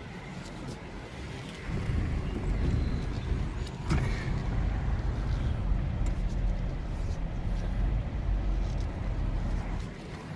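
A motor vehicle's engine running close by, getting louder about two seconds in and dropping away near the end, with a single knock about four seconds in.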